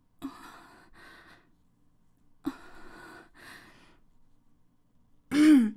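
A woman's breathy sighs, in two pairs, then near the end a short hummed moan that rises and falls in pitch, the loudest sound.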